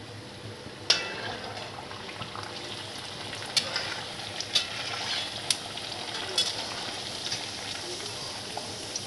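Stuffed onion kachori sizzling as it is flash-fried in very hot oil in a kadhai on high flame, the first quick frying stage. A sharp click about a second in as the frying sizzle rises, then several more sharp clicks through the middle.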